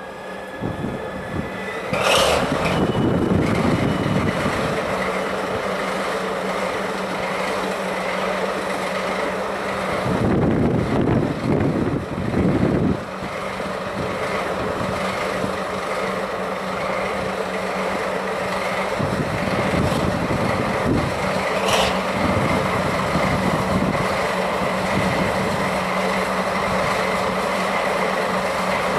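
JNR Class DD51 diesel-hydraulic locomotive, powered by two V12 diesel engines, starting up: a high starter whine for the first two seconds, then a brief loud blast as an engine catches, after which it idles steadily. Another short loud blast comes about 22 seconds in, with a steady whine running on after it, and wind buffets the microphone around 10 to 13 seconds.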